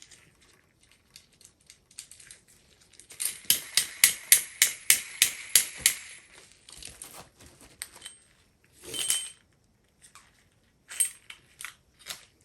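A hand tool on the faucet's cold-water connection makes an even run of sharp metallic clicks, about four a second for a few seconds, as the locking Phillips screw is loosened. Then comes a short rattle and a few lighter clicks of metal parts being handled.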